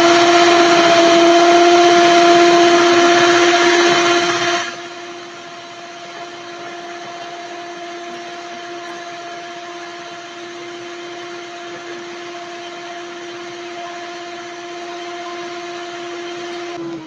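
Electric stand mixer's beaters whipping a gelatin mixture for Maria mole, the motor running with a steady whine. About four and a half seconds in it drops sharply in loudness but keeps running at the same pitch, and at the very end the motor winds down as it is switched off.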